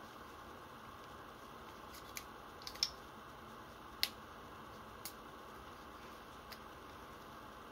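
A handful of small, sharp clicks at uneven intervals, the loudest about three and four seconds in, as gloved hands handle a Tokyo Marui SAA .45 model revolver. A faint steady hiss lies underneath.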